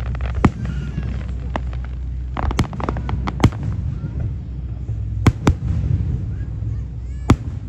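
Aerial firework shells bursting overhead: a string of sharp bangs about a second apart, two in quick succession a little past five seconds and a loud one near the end, over a continuous low rumble of booms.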